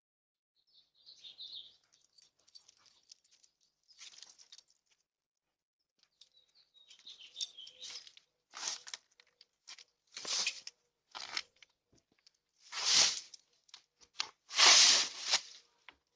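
Leafy tree branches rustling and crackling in irregular swishes while being trimmed and handled. The swishes start faint and grow louder, the two loudest coming near the end.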